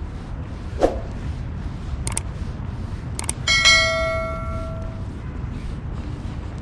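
Subscribe-button animation sound effects: a few sharp mouse-style clicks, then a single bell ding about three and a half seconds in that rings on and fades over a second and a half. Steady wind noise on the microphone sits under it throughout.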